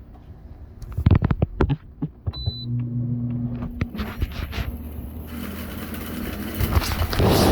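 Old Midea window air conditioner running after its compressor has just kicked on. There are several sharp knocks about a second in, then a steady low hum. Rushing air noise from the fan builds and grows louder near the end.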